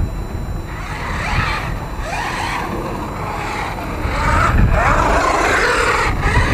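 Losi Super Baja Rey RC truck's brushless motor whining as it revs up and down in several rising and falling sweeps, running on a 4S battery. It gets louder about four seconds in.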